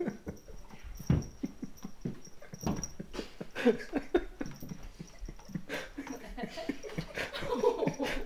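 A small cardboard treat box knocking and scraping against the carpet and wall as a cat walks blind with its head stuck inside, with irregular sharp knocks and short breathy sounds between them.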